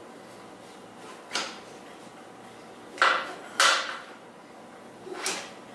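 Sharp metallic clinks and knocks from hand tools and parts being handled at a motorcycle's front end: four separate strikes, the loudest pair about half a second apart near the middle.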